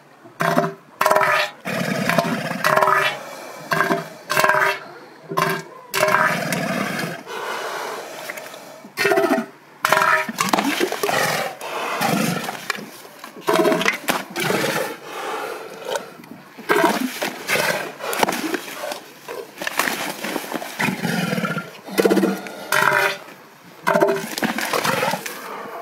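Two bull elephant seals giving throaty, pulsed threat calls at each other in a standoff over mating rights. The calls come as an even run of pulses, about two a second, for the first few seconds, then turn into longer, irregular calls that overlap.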